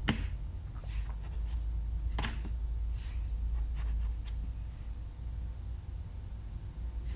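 Light scratching and rustling on a cardboard shoe box with a cat inside it: a few brief scratches, the clearest right at the start and about two seconds in, over a low steady hum.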